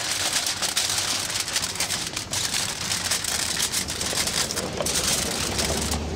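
Aluminium foil and banana leaves being folded and crumpled by hand into a parcel: a steady, dense crinkling crackle of fine clicks.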